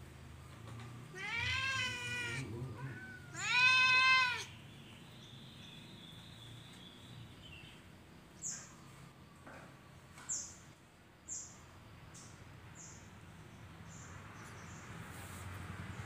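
Domestic cat meowing twice: two drawn-out calls, each rising then falling in pitch, the second louder.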